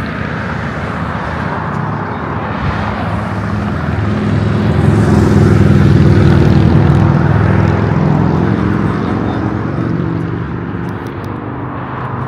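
A motor vehicle running with road noise, a steady low hum that swells louder in the middle and then eases off.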